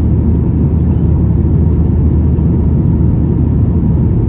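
Steady low rumble inside the cabin of a Boeing 737-900ER in flight: its CFM56-7B engines and the rush of air around the fuselage, heard from a window seat over the wing.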